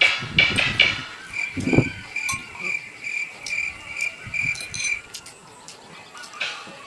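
An insect chirping outdoors, a steady high-pitched note pulsing about three times a second for several seconds. It follows the tail end of a rooster's crow in the first second. Light clicks from handling food are scattered through it.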